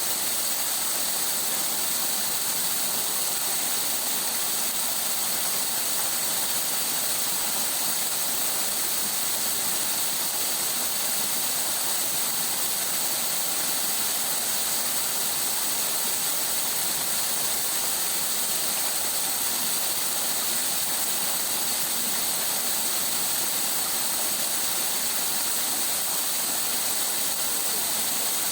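Water rushing steadily over stones, an even bright hiss that does not change.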